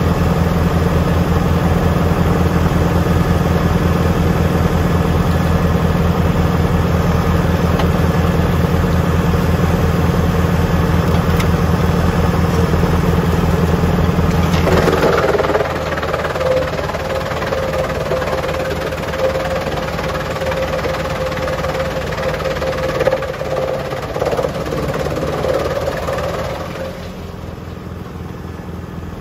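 Tractor diesel engine running steadily. About halfway through its deep note drops away and a steady whine takes over, and near the end the sound gets quieter.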